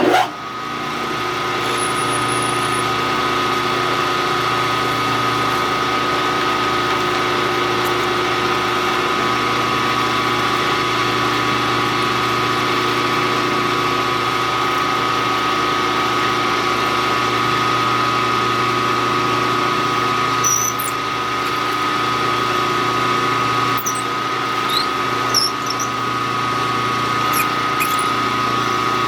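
Milling machine spindle switched on with a click and then running steadily in high gear with a constant whine while drilling through the part. A few faint ticks and squeaks come in the last third.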